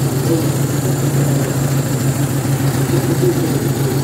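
1951 MG TD's XPAG four-cylinder engine ticking over steadily at idle.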